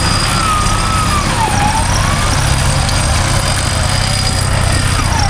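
Off-road 4x4 running under load while being winched up a rocky bank, a steady low rumble throughout. A thin whine dips and rises again in pitch during the first two seconds.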